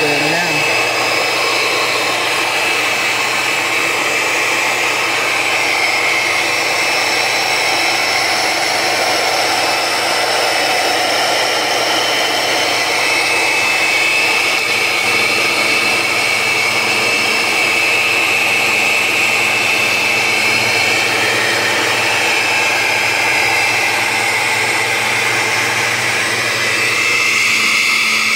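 Oster 14-speed countertop blender running steadily, its motor whirring as it blends a thick fruit smoothie. Near the end the sound shifts and a steady low hum comes in.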